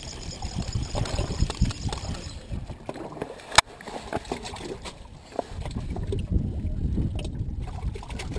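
Wind rumbling on the microphone and sea water washing against a small fishing boat's hull, heavier in the second half, with a single sharp click about three and a half seconds in.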